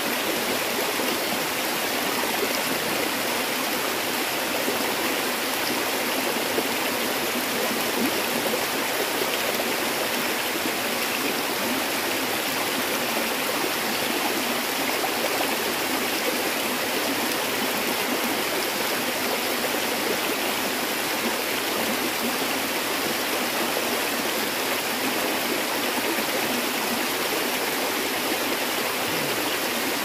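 Running water of a forest stream, rushing steadily without a break.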